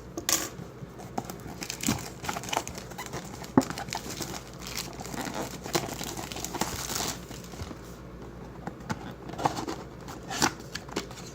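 A mystery box being unpacked by hand: packaging crinkling and tearing, with scattered small knocks and clicks and a longer rustle about halfway through.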